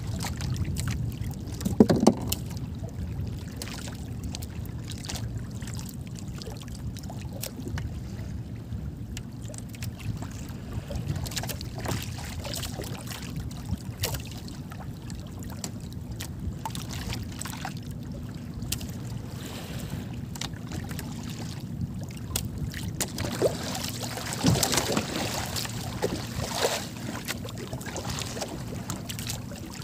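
Sea water lapping against the hull of a small outrigger boat over a steady low rumble, with scattered small knocks and clicks from handling on board and a louder knock about two seconds in.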